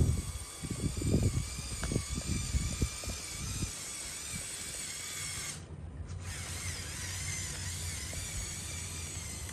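LEGO Technic RC truck's electric motors and gear drivetrain whining as it drives, the pitch wavering, with the tyres crackling over a rough gravelly surface in the first few seconds. After that it settles into a steadier hum, and the high whine cuts out briefly about six seconds in.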